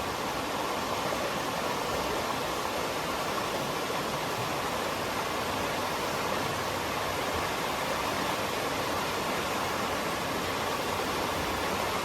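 Creek water rushing steadily, a flash-flood surge of storm runoff coming down the creek.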